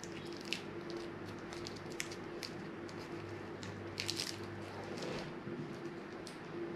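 Small clear plastic bag on an action figure's hand crinkling and crackling as it is picked and pulled off, in a few faint scattered bursts over a steady low hum.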